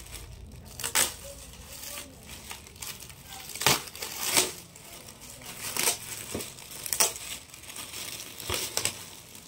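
Metallic foil gift-wrapping paper being crinkled and pulled off a cardboard box, with irregular sharp crackles, several louder than the rest.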